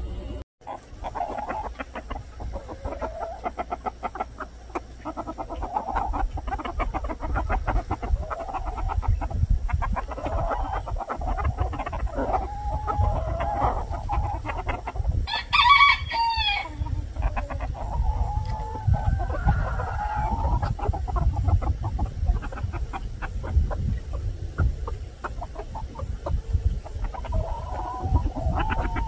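Chickens clucking on and on, with a rooster crowing once about halfway through.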